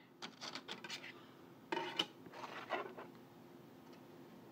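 Faint, scattered light clicks and rubbing of plastic discs being handled as a CD installer disc is swapped for the next one, most of it in the first two seconds.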